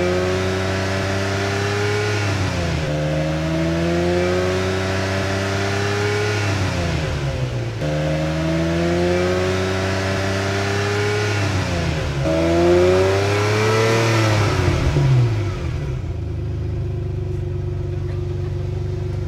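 Engine accelerating through the gears: its pitch climbs steadily and drops sharply at each shift, about four times, over a steady low drone that carries on alone after the last shift.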